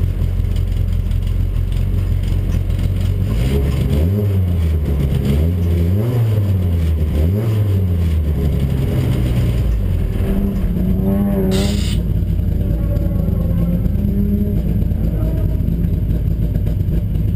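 Bilcross race car's engine, heard from inside the cabin, idling and then revved up and down several times while the car stands still. After another rev about eleven seconds in, with a short sharp burst of noise, it settles back to a steady run.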